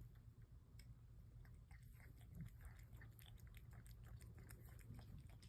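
Faint, irregular small clicks and crunches of a cat chewing.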